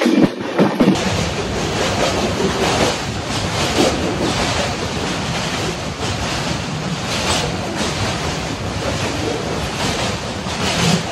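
Steady rush of wind buffeting the microphone over the running noise of a moving passenger train; the full rumble comes in about a second in.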